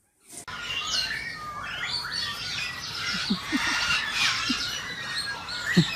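Birds chirping and twittering in quick, overlapping calls, starting abruptly just after a moment of silence.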